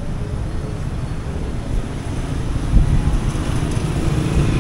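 Roadside traffic of motorcycles and motorcycle tricycles, with wind rumbling on the microphone. An engine grows louder near the end.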